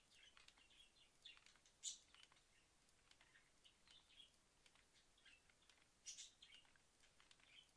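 Near silence, with faint, short, high-pitched chirps and light clicks scattered throughout. The loudest come about two seconds in and about six seconds in.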